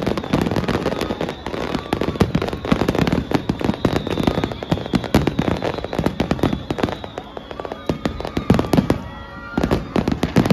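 Fireworks display going off in a dense, rapid series of bangs and crackling pops.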